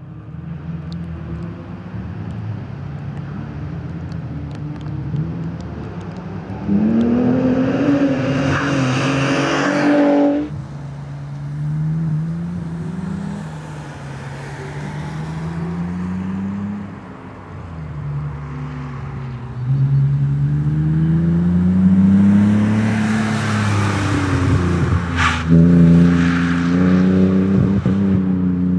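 BMW E46 3 Series Compact's engine driven hard on a race track, its pitch climbing through each gear and dropping at the shifts, growing louder as the car passes by. A single sharp click near the end.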